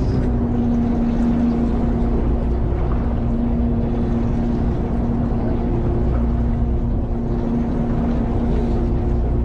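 Fishing boat's engine running steadily, a constant low hum with a rumble beneath it.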